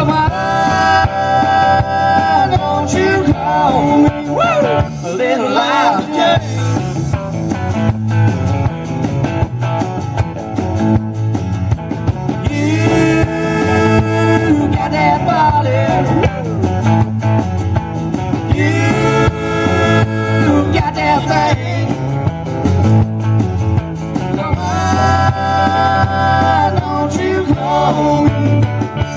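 A live band plays amplified through the stage speakers: acoustic guitars strummed, an electric guitar and a drum kit keep a steady beat. Held melodic notes come back every six seconds or so.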